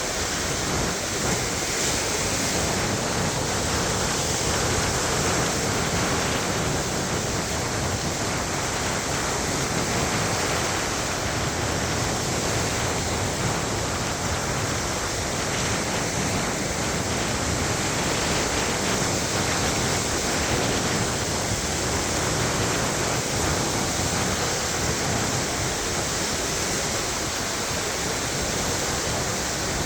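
Lake Michigan waves washing onto the beach: a steady, even wash of surf with only slight swells in loudness and no distinct single breakers.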